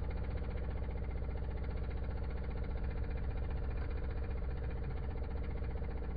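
De'Longhi Stilosa espresso machine's vibratory pump running, a steady buzzing hum.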